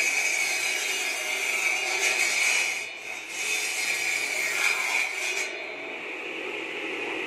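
Mini bamboo-cutting machine's 12-inch circular saw blade, driven by a half-horsepower electric motor, running with a steady whine while it saws through bamboo. The cutting noise eases briefly about three seconds in and stops about five and a half seconds in, leaving the blade spinning free.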